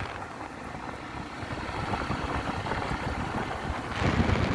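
Wind buffeting the microphone over the low rumble of a 150 cc motorcycle riding along a dirt road, growing louder about four seconds in.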